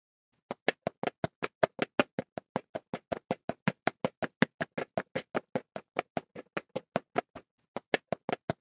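Rapid, evenly spaced knocks or taps, about five a second, with a short break near the end before they start again.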